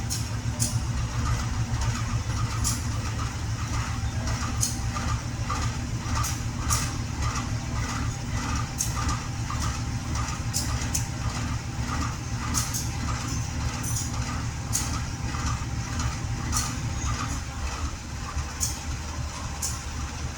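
Level-crossing warning bell dinging steadily over the deep, continuous rumble of a diesel locomotive engine, with short sharp ticks about once a second.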